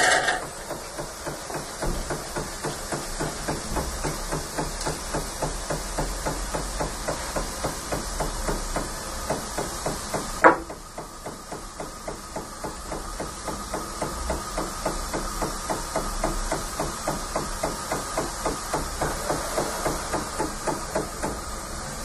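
Jura GIGA XJ9 bean-to-cup coffee machine frothing milk into a glass for a latte macchiato: a fast, even mechanical pulsing over a hiss. A single sharp click about ten seconds in is the loudest moment.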